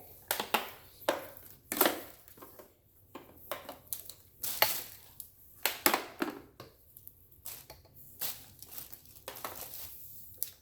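Hard plastic vacuum parts and packaging being handled: irregular sharp clicks and knocks with crinkling rustle between them.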